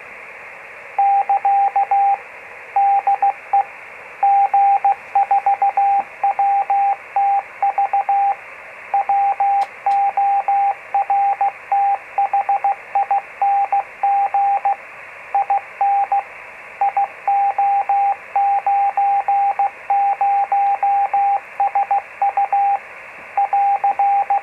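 Morse code from a 50 mW amateur-radio beacon on 432.493 MHz, a converted weather-balloon radiosonde transmitter, heard through a Yaesu FT-817 receiver as a single steady tone keyed on and off over constant receiver hiss. The keying starts about a second in and spells out the beacon's identification, 'CT DE G4WTV WORTHING IO90SU AR'.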